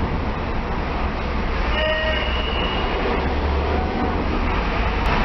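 Steady low rumble of a large vehicle under way, with a brief high whine about two seconds in.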